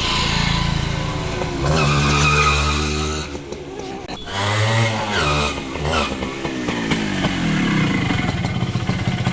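H100S motorcycle's single-cylinder engine revved in two throttle blips, about two seconds in and again near the middle, its pitch rising and falling, then running steadily. The mechanic says the misfire is now cured by a new original ignition coil and a carburettor adjustment.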